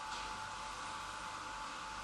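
Steady whirring hiss of the Omnilux light-therapy machine running, most likely its cooling fan, with a faint steady tone underneath.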